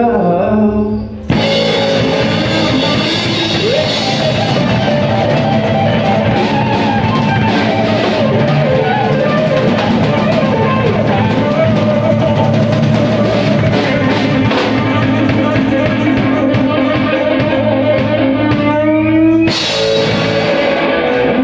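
Live rock band playing loud with electric guitars and a drum kit. The full band comes back in about a second in after a brief drop.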